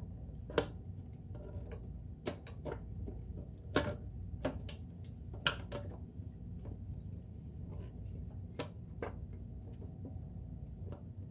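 Hard clicks and knocks of the hinged plastic bottom cover of a vintage Kenmore convertible sewing machine being handled and swung against its metal frame, a scatter of separate taps, most in the first six seconds and two more near the end.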